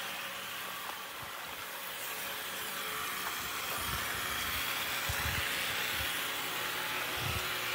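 Steady hiss of rain falling on a wet paver patio, growing a little louder midway, with a few low thumps near the middle and end.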